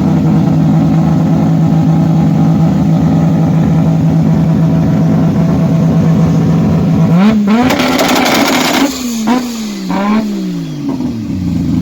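Wankel rotary engine idling with a steady drone, then revved in three quick blips from about seven seconds in, the pitch rising and falling back each time. A burst of crackling comes during the first rev.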